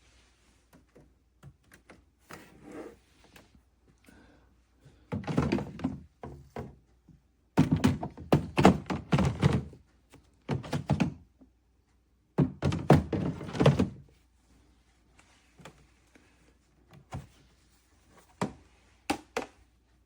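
Irregular clusters of knocks and thunks, loudest in three bunches through the middle, with scattered single clicks between.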